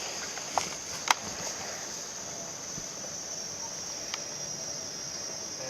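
Airsoft guns firing single shots, heard as sharp cracks: two close together about a second in and a fainter one later. A steady high insect drone runs underneath.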